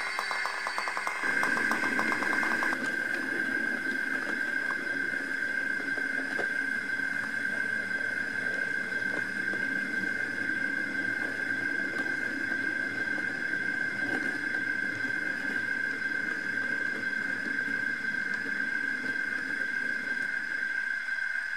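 H0 scale model steam locomotive running with its train along the layout track: a steady whine over the rumble of the wheels on the rails.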